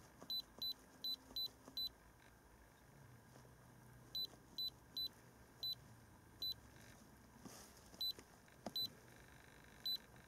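Short, high electronic key beeps from an iCarsoft i930 handheld diagnostic scan tool, one with each button press as its menu is stepped through. There are about fourteen, at an uneven pace in three quick runs with pauses between.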